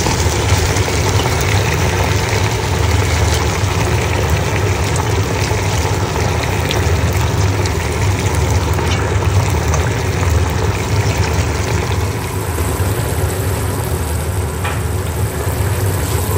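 A steady low hum under an even hiss, with a metal spoon stirring and scraping now and then in a pot of simmering meat-and-tomato broth.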